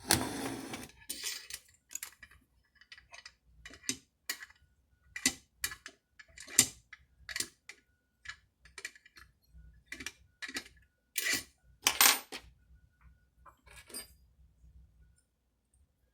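Irregular clicks and metallic clinks of hand tools and small metal parts being handled during chainsaw reassembly, with a scrape-like rustle at the start and the sharpest knocks about six and twelve seconds in.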